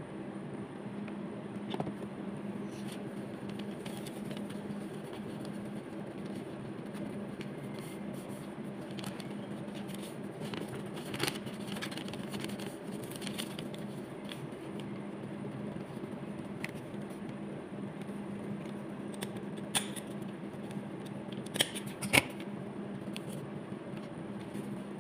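Sheets of paper being handled at a desk: scattered light rustles and a few sharp clicks, the loudest about 20 and 22 seconds in, over a steady low hum.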